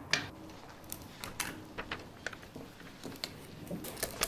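Scattered light clicks and taps of a steel tape measure being handled against metal pipe clamps, with the sharpest clicks just after the start and near the end.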